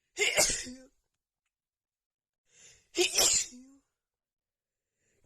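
Two sneezes from a woman with a head cold, about three seconds apart. Each is a sharp burst of noise ending in a short voiced tail, and a faint in-breath comes just before the second.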